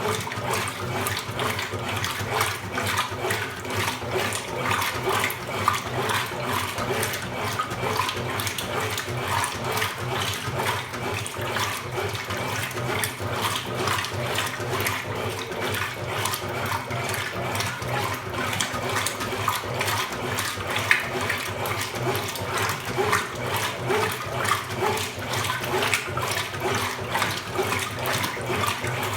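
Consul Supercargo 8 kg top-load washing machine with water rushing and splashing in its tub, a dense uneven sloshing over a steady low hum.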